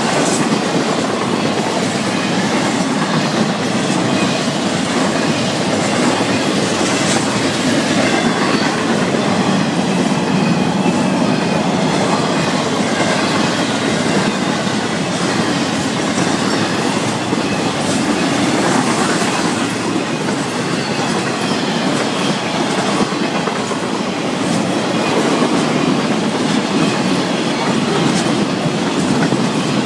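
Florida East Coast Railway freight train cars rolling past at close range: a steady loud rumble of steel wheels on rail, with the clickety-clack of wheels over rail joints.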